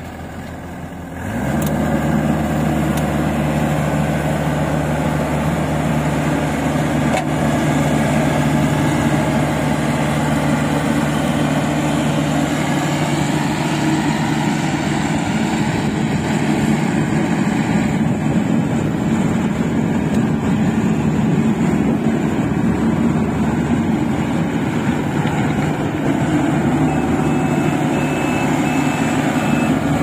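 Diesel engine of a tracked rice combine harvester running steadily while the machine crawls along. It is quieter briefly at the start and picks back up about a second and a half in.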